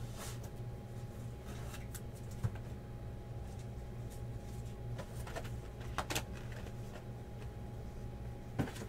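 Quiet room with a steady low hum and a few soft taps and rustles, scattered through, as trading cards and their box are handled and set down on a table mat.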